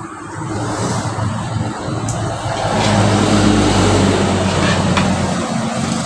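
A motor vehicle's engine running with a steady low hum, growing louder over the first three seconds and staying loud.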